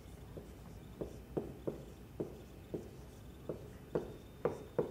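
Dry-erase marker writing on a whiteboard: a faint string of about a dozen short, irregular marker strokes.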